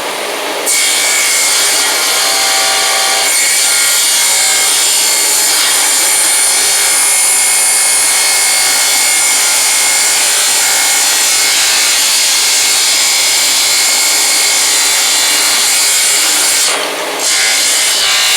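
A power tool cutting through wood in one long steady pass. It breaks off briefly near the end and then cuts again.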